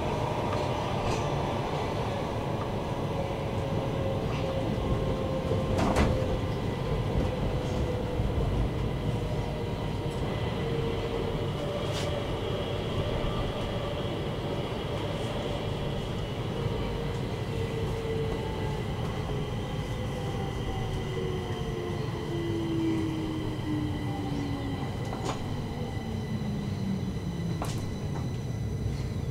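Subway train heard from inside the carriage, running and slowing into a station: a steady rumble with a motor whine that falls in pitch, dropping steeply over the last several seconds as it brakes. A few single sharp clicks sound along the way, the clearest about six seconds in.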